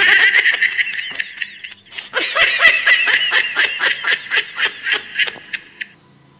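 A toddler giggling in high-pitched, rapid bursts of about four laughs a second, in two long runs with a short break about two seconds in, stopping about six seconds in.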